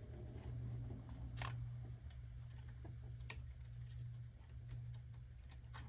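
A few sharp clicks and light taps of plastic parts being handled and fitted together, over a steady low hum.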